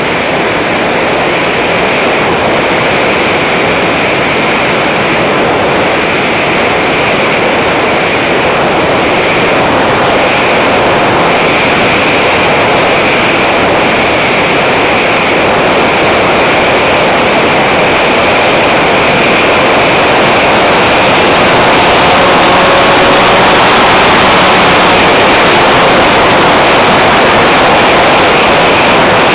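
Onboard-camera sound of an Easy Star RC plane in flight: a loud, steady rush of wind and propeller noise, growing a little louder in the second half.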